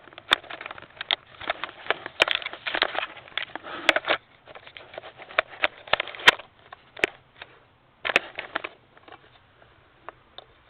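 Handling noise from a tripod being picked up and readjusted: rustling with many small clicks and a few sharp knocks, quieter in the last few seconds.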